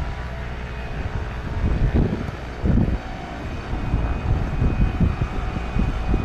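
Cessna Citation Sovereign business jet on final approach, its twin Pratt & Whitney Canada PW306C turbofans giving a steady jet rumble with a faint whine, with gusty low buffeting over it.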